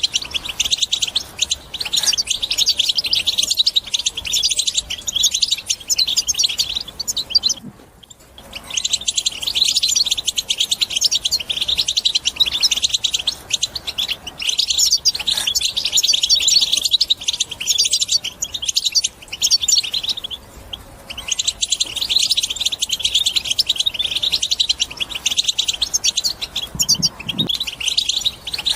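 European goldfinch singing a fast, high-pitched twittering song that runs almost without pause, breaking off briefly about eight seconds in and again about twenty-one seconds in.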